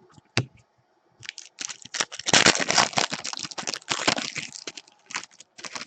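A trading-card pack wrapper crinkling as it is torn open and handled, loudest in the middle of the stretch, after a single sharp click about half a second in.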